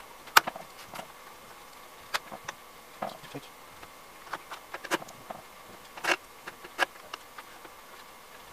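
Chain of a DeWalt cordless chainsaw being handled on its bar: scattered short metallic clicks and brief rattles of the chain links, the sharpest just under half a second in. A faint steady hum runs underneath.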